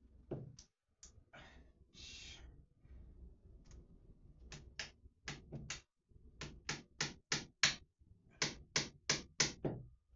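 Hammer tapping against a wall in quick runs of sharp strikes, about three to four a second, a few scattered taps at first and then three runs of four to six strikes each.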